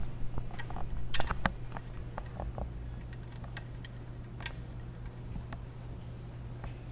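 Small metallic clicks and ticks of an Allen key working the screws that hold a mass airflow sensor to an aluminium intake pipe, thickest in the first couple of seconds and then scattered. A steady low hum runs underneath.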